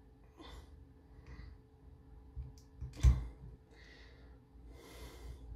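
Small plastic action-figure parts being handled as a plastic sword is worked into the figure's hand: a few soft rustles and one sharp click or knock about three seconds in.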